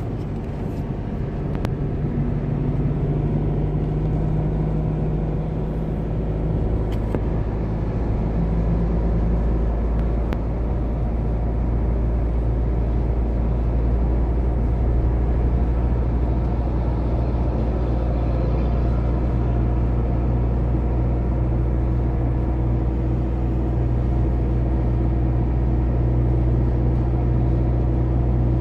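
Car driving at a steady pace: a continuous low drone of engine and road noise.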